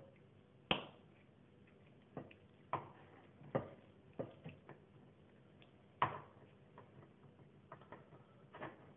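Scattered light clicks and taps from a small spice jar of paprika being handled and shaken over a glass bowl. There are about a dozen at uneven intervals, with the sharpest about a second in and another near the six-second mark.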